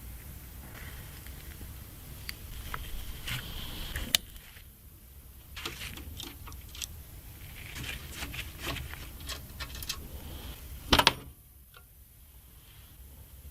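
Hands fitting PC case fans: scattered small plastic clicks, taps and handling rustle, with a loud double click about eleven seconds in.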